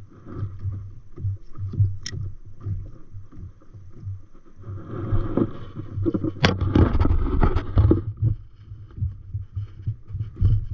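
Seawater lapping and slapping against the hull of an inflatable paddleboard, with irregular low thumps. A louder rush of water noise comes from about five to eight seconds in.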